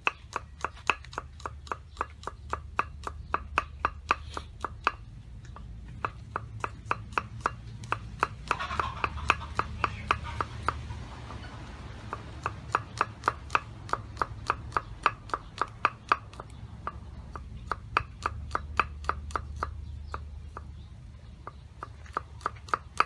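Knife chopping garlic cloves on a round wooden chopping board: quick, even strokes at about four a second, broken by a few short pauses.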